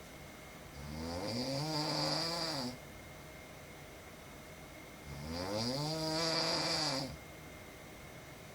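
A woman snoring in her sleep: two long snores about four and a half seconds apart, each lasting about two seconds, rising in pitch as it starts and falling away at the end, with a breathy hiss over it.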